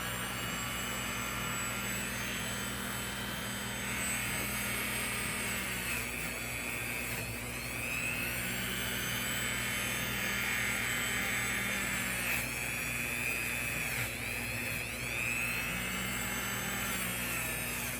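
Dremel rotary tool running steadily while it works into the tight places of a pocket knife, its high whine dipping and rising back several times as it bears on the work.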